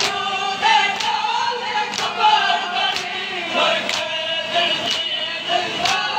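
Men's voices chanting a mourning noha in unison, with a sharp slap landing about once a second as the mourners beat their chests in time (matam).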